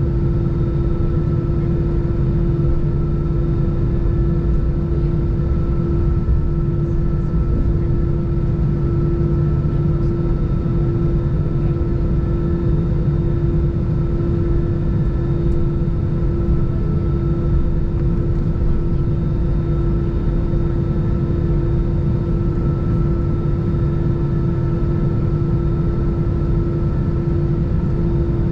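Airbus A320 cabin noise while taxiing, heard from inside the cabin: the jet engines run at low taxi thrust as a steady hum with one constant droning tone over a low rumble.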